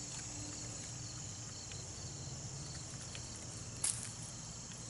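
Steady chorus of insects, with faint regular pulsing, and a brief rustle a little under four seconds in.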